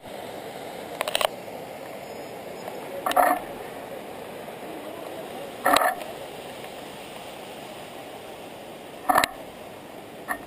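Steady rushing of a muddy flooded river, broken by a few short loud knocks spaced two to three seconds apart.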